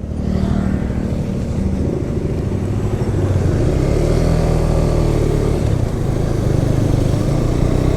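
Motorcycle engine pulling away and accelerating, its pitch rising and falling as it picks up speed, most likely the narrator's KTM 250 Duke single-cylinder.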